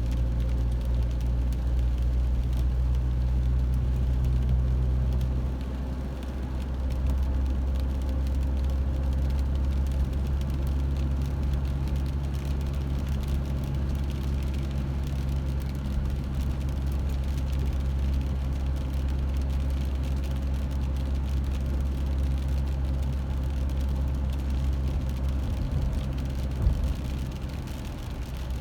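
A motor vehicle's engine running steadily, a low hum that shifts and drops slightly about five seconds in.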